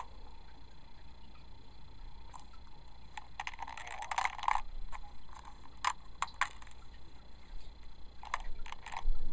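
Blue plastic Blu-ray case being handled and opened: scattered small clicks and rustles of the plastic case and its snap-open lid, coming in clusters.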